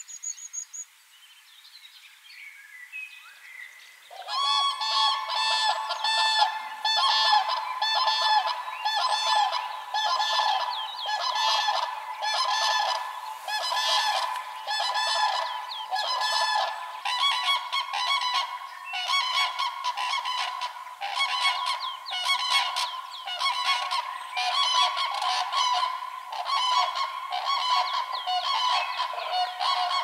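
Common cranes (Grus grus) calling: a few quiet calls, then from about four seconds in a dense chorus of loud, overlapping trumpeting calls from many birds.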